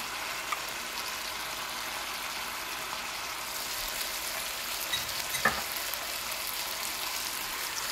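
Stir-fry of pork and vegetables sizzling in a hot cast iron wok: a steady frying hiss, toned down by the soy sauce and hoisin just added. A couple of light taps about five seconds in.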